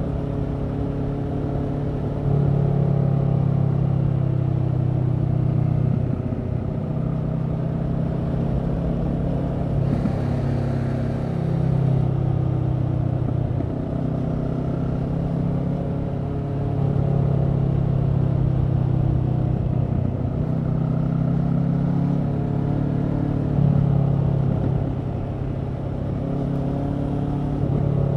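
Kawasaki Z650's parallel-twin engine through a Leo Vince EVO carbon exhaust, running at a steady cruise. Its note swells and eases every few seconds as the throttle is opened and rolled off.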